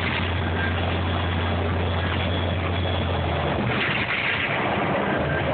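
New Flyer DE40LFR diesel-electric hybrid bus under way at highway speed, heard from inside the cabin: a steady drivetrain drone over road and wind noise. The deep hum eases off about three and a half seconds in.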